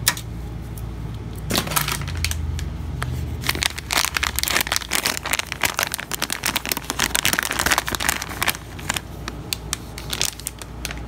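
Clear plastic packaging bag crinkling and crackling as it is handled and unwrapped to reach a replacement PC power-switch assembly, densest in the middle and easing off near the end, after a sharp click at the very start.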